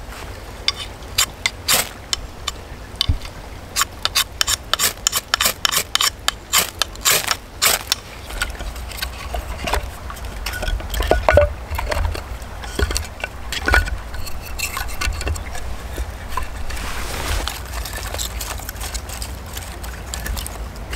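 Dry split kindling sticks clacking together as they are handled and stacked into a fire lay: a quick run of sharp wooden clicks for the first several seconds, then sparser knocks with rustling.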